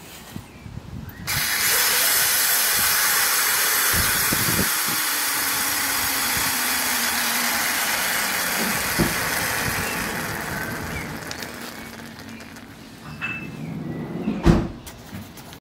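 Steam and water hissing out of a small brass drain valve at the base of a Stuart 500 model steam boiler as it is opened, venting the last of the boiler pressure. The hiss starts about a second in, holds steady, then fades away as the pressure drops, with a sharp knock near the end.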